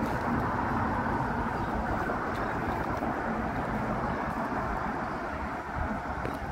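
Steady wind rushing on the microphone, a broad low rumble with no distinct events.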